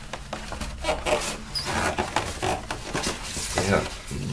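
Paper and cardboard rustling and scraping as a hand digs into the pocket of a cardboard gatefold record sleeve to reach an insert.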